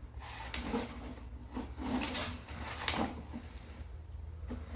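Sewer inspection camera's push cable being pulled back out of the line: a run of short scraping, rubbing sounds roughly every half to one second over a steady low hum.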